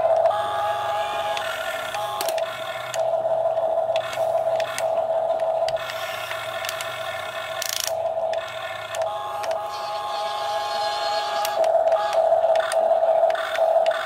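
Small electric gear motors of a Huina remote-control toy excavator whining as its boom and arm move. The whine stops and starts every second or two and shifts slightly in pitch, with a few sharp clicks.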